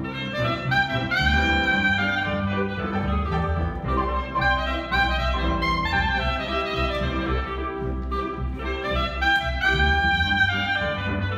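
A clarinet plays a lively, quick-moving jazz melody, with grand piano and upright bass accompanying. This is a small acoustic jazz trio performing live.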